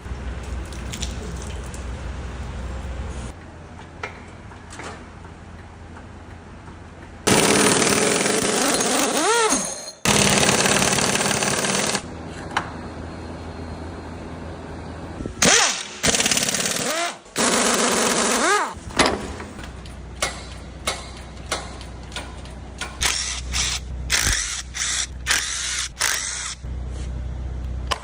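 Impact wrench run in several bursts of one to three seconds each, its hammering rattle rising and falling in pitch as it spins up and winds down, with clicks and knocks of hand tools between bursts. This is fasteners being undone to take apart a Tesla Model S and replace a noisy bearing.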